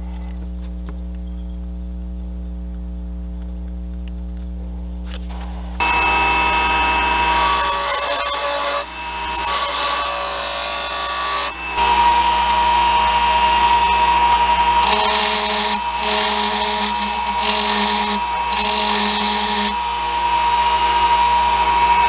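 Wood lathe motor running with a steady hum. About six seconds in, a carbide turning tool starts cutting the spinning aromatic cedar spindle: a loud, continuous scraping hiss with a steady ringing tone, broken by two brief pauses and changing in level as the cut moves.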